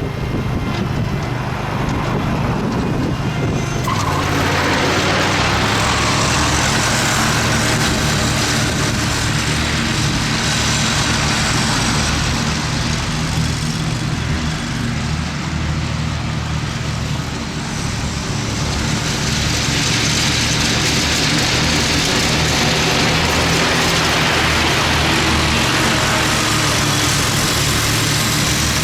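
Kohler engine of a Dixon ZTR zero-turn mower running steadily. It picks up and grows louder about four seconds in, eases off briefly past the middle, then comes back up.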